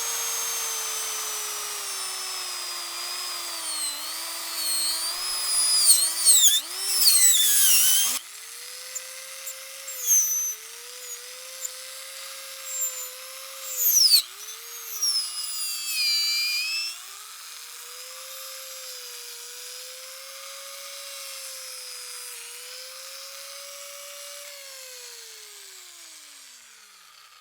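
Power drill running with a motor whine that wanders in pitch, rough and loud for the first eight seconds, then lighter with several dips and brief louder bursts. Near the end the motor winds down with a falling pitch.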